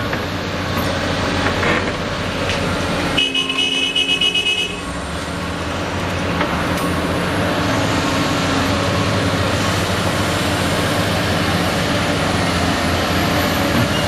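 Diesel engines of CAT excavators and a wheel loader running steadily under work. About three seconds in comes a brief, rapidly pulsing high-pitched tone, lasting about a second and a half.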